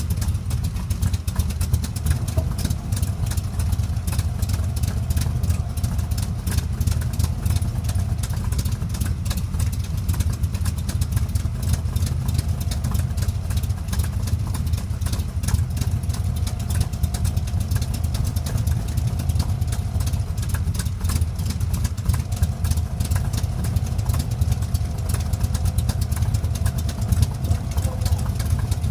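Chevrolet V8 in a Dax Cobra replica idling steadily through its exhaust, with no revving.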